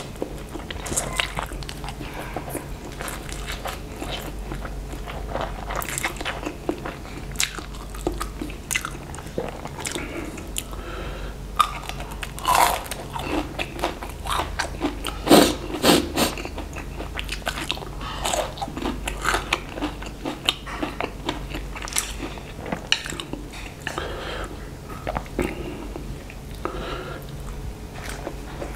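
Close-up eating sounds: mouthfuls of fried instant noodles being taken in and chewed, with wet clicks and smacks throughout. Near the middle come the loudest bites, crunching into a breaded chicken nugget.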